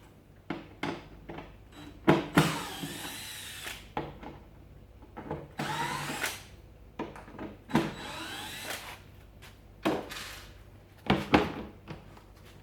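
Power drill run in three short whirring bursts, each rising in pitch, with sharp knocks and clatter in between, as the door is being taken off a small cabinet.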